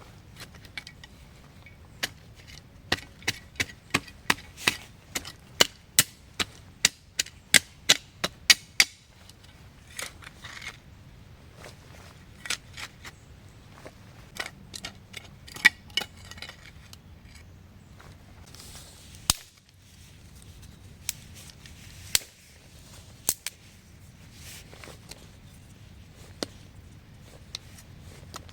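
Wood being chopped: a quick run of sharp knocks about two a second, then scattered single strikes.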